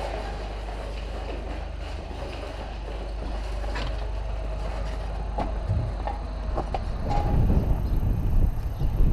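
A red gas pressure washer being wheeled along by hand, its wheels rolling and its frame and hose rattling, with a few sharp knocks; the noise grows louder and rougher about seven seconds in.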